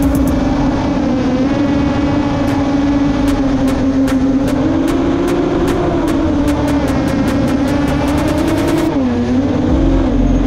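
FPV racing drone's motors and propellers whining at a steady high pitch while chasing a truck. The pitch wavers with the throttle and dips and wobbles about nine seconds in.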